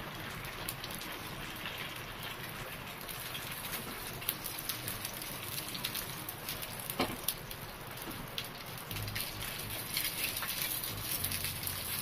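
A whole brinjal roasting on a hot iron tawa over a gas burner: a steady sizzling hiss with scattered small crackles and clicks as the skin chars, and steel spoons now and then tapping the pan as it is turned.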